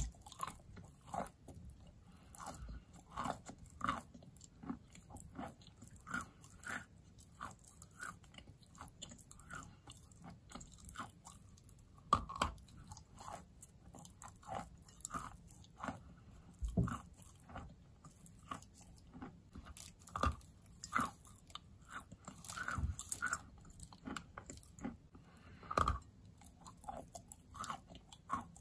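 A person biting and chewing a large block of soaked white chalk: steady irregular crunching and crumbling, with sharper crunches every few seconds.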